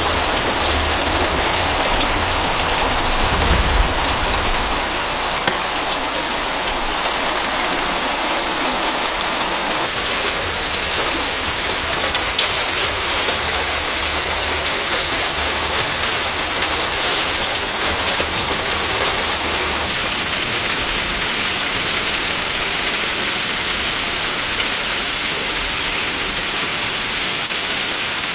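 Rain pattering steadily against a window pane, a dense, even hiss of drops. A low rumble sits under it in the first few seconds, and the rain's character shifts slightly about a third and two thirds of the way through.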